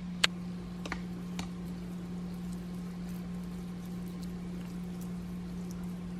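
A few light clicks or taps in the first second and a half, then faint scattered ticks, over a steady low hum.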